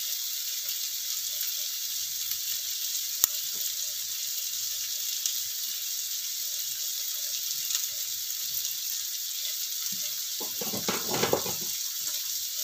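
Ground spice paste (garlic, shallot, candlenut) with tomato, lemongrass and ginger frying in oil in a pan, sizzling steadily with fine crackle while it is sautéed until fragrant. A single sharp click comes a little over three seconds in, and there is a short louder stretch near the end.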